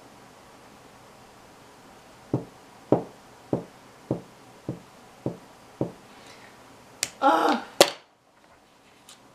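Seven short, evenly spaced taps, a little under two a second, over a quiet room. Soon after comes a brief, louder sound with a wavering pitch, then a single click.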